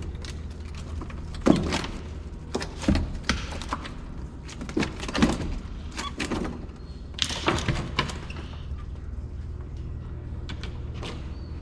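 Irregular knocks and thunks on a plastic fishing kayak as a hooked sheepshead is brought aboard and handled, over a steady low rumble.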